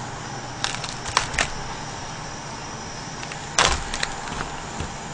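A few light clicks and clatters of tableware and food containers as food is picked up from a tray, over a steady background hiss.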